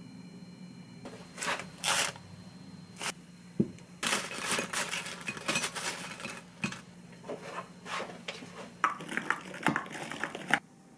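Kitchen handling sounds: a straw knocking and stirring inside a plastic tumbler, and tongs lifting crisp fish-shaped pastries (bungeoppang) out of a wire air fryer basket onto a ceramic plate. It is a busy run of clicks, scrapes and rustles over a low steady hum, densest in the middle, that cuts off just before the end.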